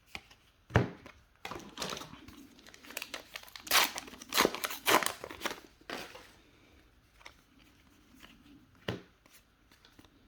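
A trading card booster pack's foil wrapper being torn open and crinkled. There is a sharp click about a second in, then several seconds of loud crackling that die down about six seconds in.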